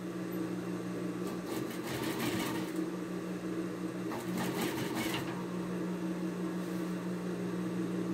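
Sewing machine running at a steady speed with an even motor hum, stitching a fabric bias strip onto the piece.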